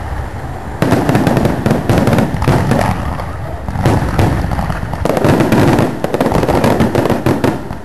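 Aerial fireworks shells bursting in quick succession: a dense, loud barrage of overlapping bangs and crackling with hardly a gap, growing heavier about a second in.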